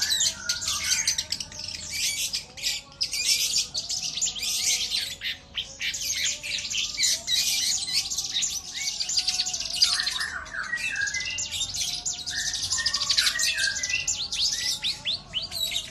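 Long-tailed shrike singing without a break: a fast, dense stream of high chattering and trilling notes, mixed with lower whistled phrases, in the way a shrike strings together copied calls of other birds.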